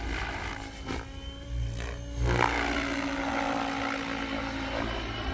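Goosky RS7 RC helicopter flying, its rotor and motor making a steady whirring hum that gets louder about two seconds in and then sweeps down in pitch as it manoeuvres.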